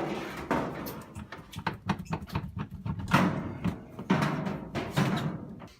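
Music with a driving percussion beat and heavy drum hits.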